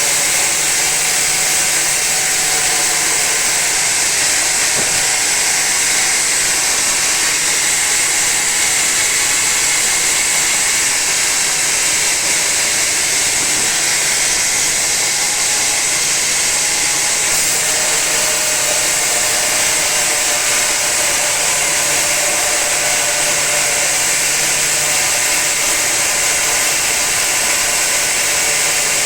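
Sawmill saw cutting through a teak log: a steady, loud, unbroken noise with a strong high hiss.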